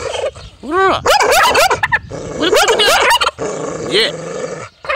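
Dog barking and yelping: clusters of short calls that rise and fall in pitch, with brief pauses between them.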